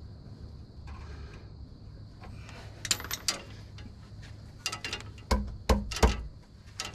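Tools and metal engine parts being handled during timing cover reassembly: scattered light metallic clicks, then three heavier knocks in the second half, over a low steady hum.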